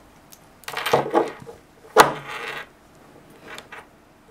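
Handling clatter as an electronic speed controller (ESC) with its wires and plugs is lifted out of its box and set down on a wooden table: a few light knocks and rattles, with one sharp knock about two seconds in.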